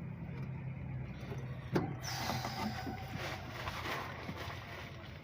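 An engine running steadily with a low hum, and one sharp knock a little under two seconds in.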